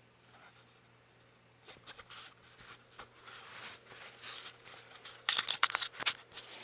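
Rustling and handling noise with scattered small clicks, growing louder, then a quick run of sharp clicks and knocks about five seconds in.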